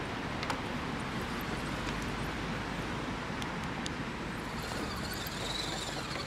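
Axial SCX10 RC crawler truck driving over dry leaf litter, with a few sharp crackles from leaves and twigs under its tyres. Near the end, as it passes close, a high whine rises from its electric motor and gears, over a steady hiss of outdoor noise.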